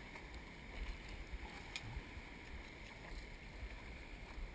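Wind rumbling on the microphone over a faint, even wash of water, with a light tick just under two seconds in.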